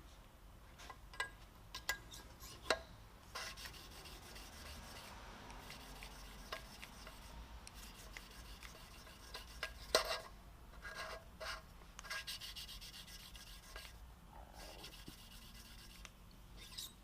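A Cummins 12-valve cylinder head valve being hand-lapped into its seat with coarse lapping compound: an intermittent gritty rasping of metal on metal as the valve is twisted back and forth, with scattered sharp clicks and taps, the loudest about ten seconds in. The lapping is wearing down a ridge around the valve face.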